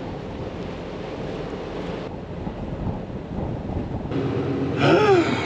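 Wind buffeting the microphone in an open field, a rough rumbling noise. About four seconds in it changes abruptly to the steady hum of a tractor engine, with a brief rising-and-falling pitched sweep near the end.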